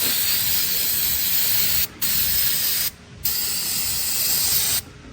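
Pressurised cleaning spray hissing in three long bursts, with short breaks about two and three seconds in, blasting metal fragments off the underside of a 6L80 transmission valve body.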